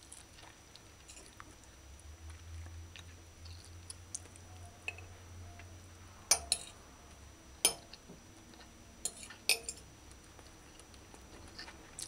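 Metal fork clinking and scraping against a plate of rice and stew, with about five sharp clinks in the second half.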